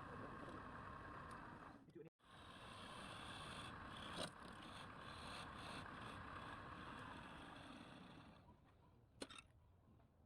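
Faint, steady machine running noise, cut off by an edit about two seconds in and then resuming, with a sharp knock about four seconds in; the noise dies down near the end, followed by another brief knock.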